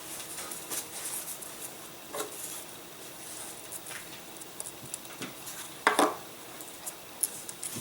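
Light clicks, taps and scraping of small balsa wood parts being handled and fitted into a model wing, with one louder knock about six seconds in.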